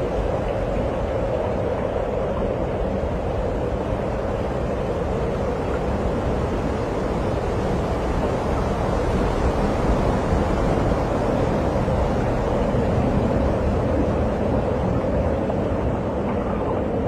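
Steady rushing noise of strong tornado winds, with wind buffeting the microphone.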